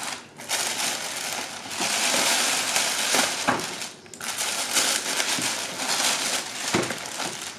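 Plastic mailer bag crinkling and rustling as it is handled and the wrapped packages inside are pulled out, with short pauses about a third of a second in and about four seconds in.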